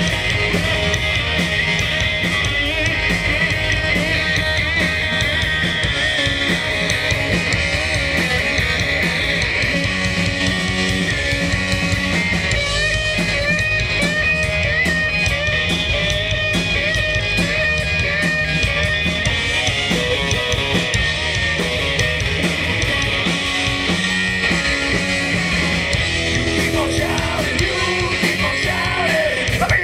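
Rock band playing live, with electric guitar over a steady drum beat.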